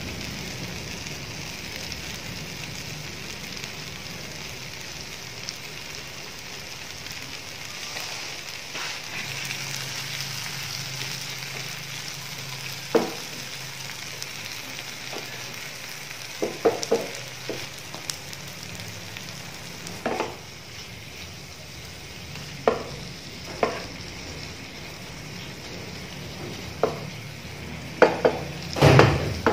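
Meat and bell pepper strips sizzling steadily in a non-stick frying pan. A wooden spatula knocks against the pan now and then from about halfway, with a quick run of knocks near the end as it is stirred.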